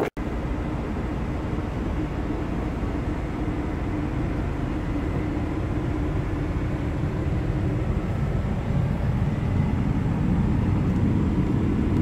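Inside a semi-truck's cab, a steady low rumble of a running engine with a faint hum, growing slightly louder over the last few seconds.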